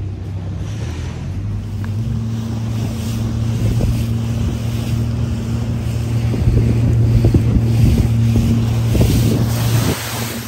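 An engine drones steadily at a low pitch, with wind buffeting the microphone. The drone stops near the end.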